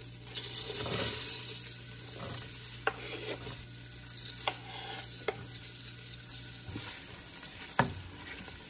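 Chopped poblano peppers and scallions sizzling in hot melted butter in a stockpot as they are scraped in from a cutting board, with a few sharp knocks. A wooden spoon stirs them near the end.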